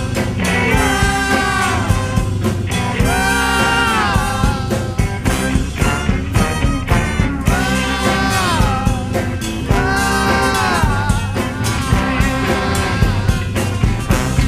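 Band music with a steady beat, and a lead line of long held notes that slide down at the end of each phrase.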